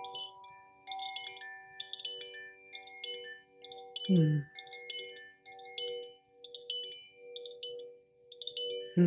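Bamboo Koshi chime gently swung by hand, its clapper striking the tuned rods inside in a loose, irregular tinkling, the ringing tones overlapping and fading. Twice a louder low sound slides downward in pitch, about four seconds in and again near the end.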